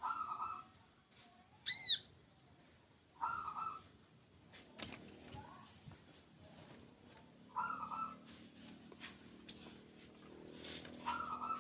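Small birds calling: a short, low call repeats about every three and a half to four seconds, and a brief, loud, high chirp with several notes comes about two seconds in. Two sharp clicks come later.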